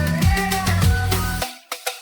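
Instrumental stretch of a pop song with no vocals: drums, bass and held keyboard tones. About one and a half seconds in, the bass and drums cut out suddenly, leaving a few sparse hits.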